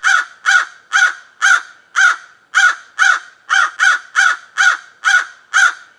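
A crow cawing repeatedly: about a dozen short, harsh caws in an even rhythm of roughly two a second.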